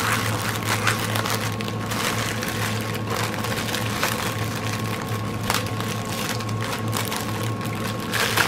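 Small plastic bags of diamond-painting drills being handled: scattered crinkles and light clicks over a steady low hum.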